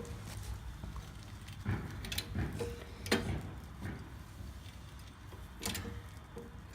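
Hydraulic trolley jack being pumped: a run of metallic clicks and knocks about half a second apart, the loudest about three seconds in, and one more near the end.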